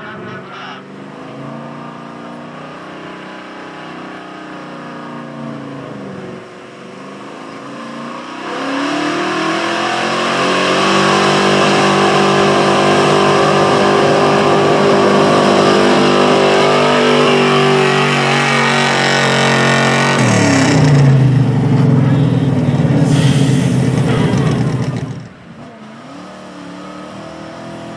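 Gasoline pickup truck engine at full throttle pulling a truck-pull sled: it climbs from a lower running note to high revs held for about ten seconds, the pitch sagging and dropping to a lower, heavier note as the sled's weight builds. A brief loud hiss comes about 23 seconds in, and near 25 seconds the engine drops back to a low idle.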